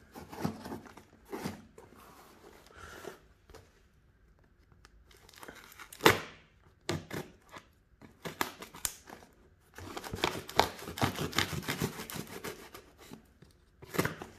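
A serrated folding knife saws through packing tape and cardboard along the edges of a box, giving ripping, crackling scrapes in irregular strokes. There is one sharp, loud crack about six seconds in, and a busier run of sawing near the end.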